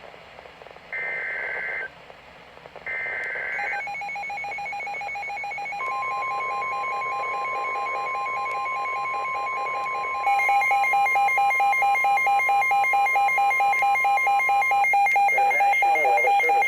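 Emergency Alert System tones on NOAA Weather Radio. The last two of three buzzy SAME digital header bursts sound, then the steady 1050 Hz weather-radio warning alarm tone holds for about nine seconds, announcing a severe thunderstorm warning. Under and after it, a second electronic alarm beeps rapidly and gets louder about ten seconds in.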